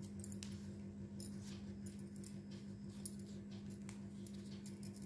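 Dry corn husks crinkling and rustling faintly in the hands, in scattered small crackles, as thread is wound around the base of a husk rose. A steady low hum runs underneath.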